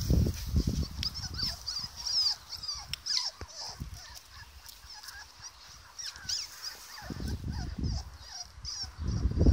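Three-and-a-half-week-old puppies squeaking and whimpering, many short high-pitched squeaks that rise and fall. Low bumps and rustling near the start and again near the end.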